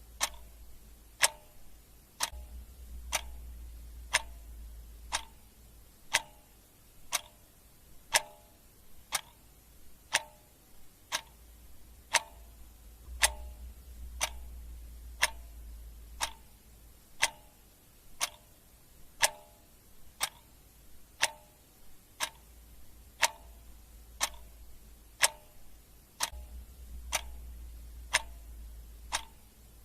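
Clock ticking sound effect: sharp, regular ticks at about one a second, keeping time for a countdown timer.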